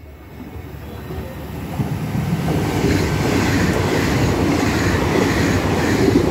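Puyuma Express tilting electric multiple unit passing through a station at speed. Its noise grows over the first two seconds as it approaches, then holds loud and steady as the cars go by.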